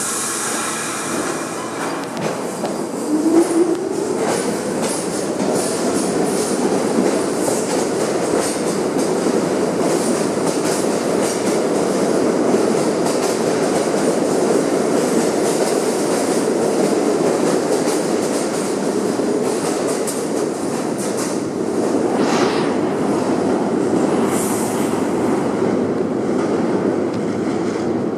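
An R46 subway train pulls out of the station. Its traction motors whine up in pitch as it speeds up, then the wheels rumble and clack steadily as the cars roll past. A brief high wheel squeal comes near the end.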